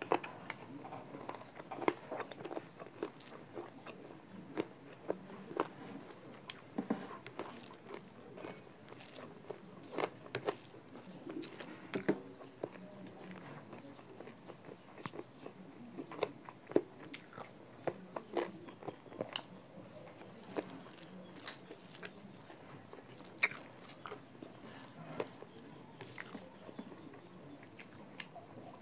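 Close-up mouth sounds of a person eating chicken curry and rice by hand, chewing with frequent short, sharp clicks at irregular intervals.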